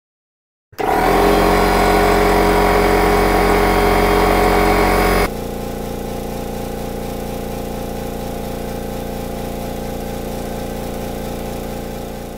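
Two air compressors running one after the other for comparison. First, an old pancake compressor runs loud for about four and a half seconds. Then there is a sudden cut to the noticeably quieter Makita MAC2400, its oil-lubricated pump running steadily with a faint rhythmic pulse as it pumps up the tank.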